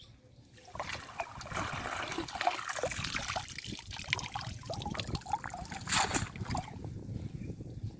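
Water splashing and trickling in a flooded pond, with small knocks, loudest in a brief burst about six seconds in.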